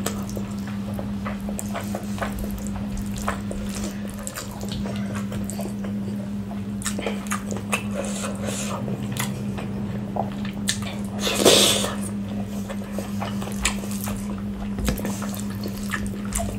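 Close-miked eating sounds: wet squelching and smacking as rice and chicken curry are squeezed by hand, with chewing and lip smacks, over a steady low hum. A louder, longer wet sound comes about eleven seconds in.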